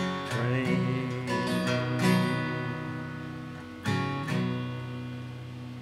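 Acoustic guitar strumming the closing chords of a country song. A final strum about four seconds in is left to ring out and fade away.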